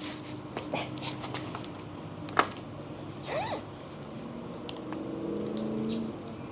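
Hand work with a tire-plug insertion tool: scattered scuffs and light clicks, one sharp click about two and a half seconds in, and a short scrape a second later, while the plug is forced into the tire tread.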